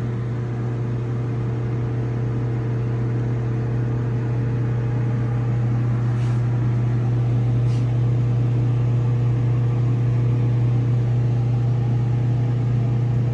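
Deep, steady electrical hum of running machinery, such as a motor, with a few fainter higher tones over it. It grows slowly a little louder, with two faint ticks in the middle.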